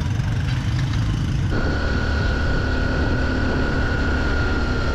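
Motorbike engine running while riding, with rushing wind on the microphone. The sound changes abruptly about a second and a half in, and a steady high whine joins from then on.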